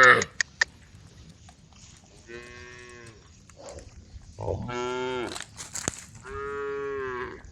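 Cows mooing: the end of one loud call right at the start, then three long moos a couple of seconds apart.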